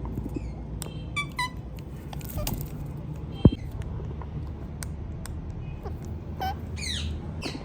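Indian ringneck parakeet giving a few short, high chirps and squeaks, a cluster about a second in and a descending one near the end, over a steady low hum. One sharp click sounds about three and a half seconds in.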